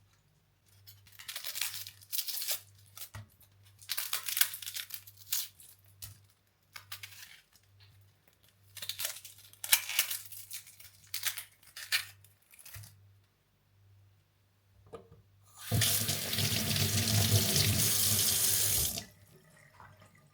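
Water at a kitchen sink splashing in short, uneven bursts, then the tap running in a full steady stream for about three seconds before it is shut off.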